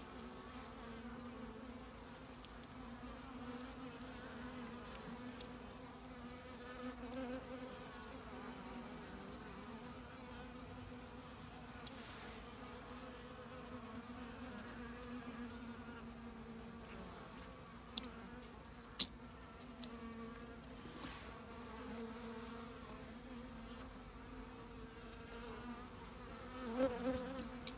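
Honeybees buzzing in a steady low drone. Two sharp clicks about a second apart, about two-thirds of the way through.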